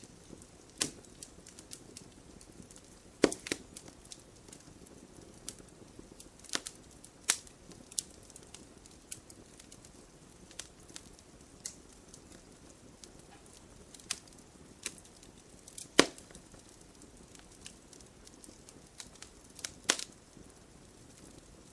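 Wood campfire crackling and popping: a steady scatter of small snaps over a soft hiss, with a few louder pops about 3, 7, 16 and 20 seconds in.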